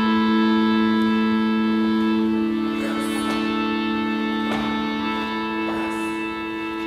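Slow, sustained organ-like keyboard music: held chords that shift about two and a half seconds in and again around five seconds, with a few faint knocks over it.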